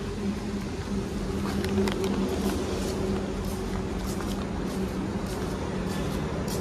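A steady, low mechanical hum runs throughout, with light footsteps on a tiled floor ticking faintly over it.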